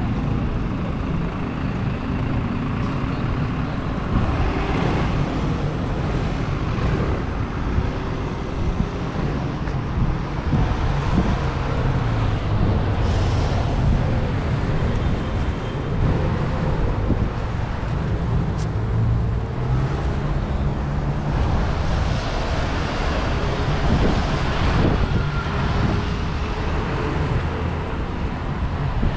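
Steady city road traffic: cars and trucks driving past with engine hum and tyre noise on wet roads, several vehicles swelling and fading as they pass.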